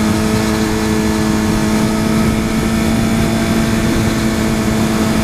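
2012 Suzuki GSX-R 1000's inline-four engine with a Yoshimura R-77 full exhaust running at a steady pitch while the bike cruises, with wind rumble on the microphone.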